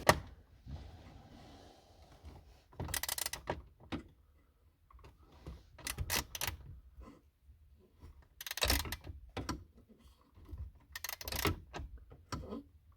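Scattered clicks, scrapes and light knocks of hands working up under a car's dashboard, threading the mounting nuts of a dash pad. They come in several short clusters a few seconds apart, the loudest about nine seconds in.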